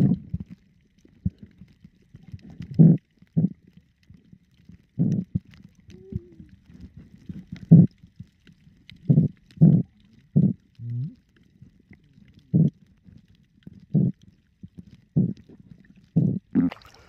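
Muffled knocks and gurgles picked up by a camera held underwater: a series of short, low bursts at irregular intervals as a speared reef fish is handled underwater.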